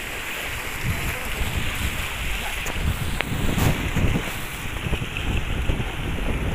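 Wind gusting on the microphone in uneven rumbling buffets over the steady wash of sea waves.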